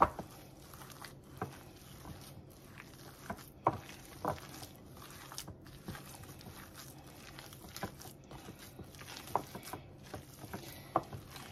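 Hands kneading and squishing a raw ground turkey meatball mixture in a glass mixing bowl: irregular soft wet squelches with a few sharper clicks, the sharpest right at the start.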